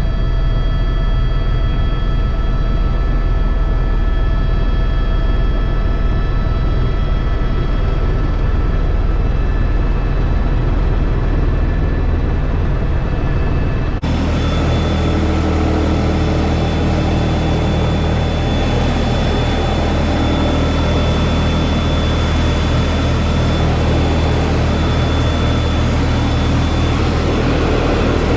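Tour helicopter's turbine engine and rotor running steadily in flight, a loud constant drone with a low hum and fixed whining tones. About halfway through, the tone changes abruptly to a different, hissier mix of steady tones.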